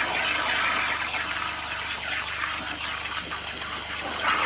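Plasma torch on a CNC gantry cutting steel sheet: a steady hiss from the cutting arc and its air jet, dipping slightly midway and rising again near the end.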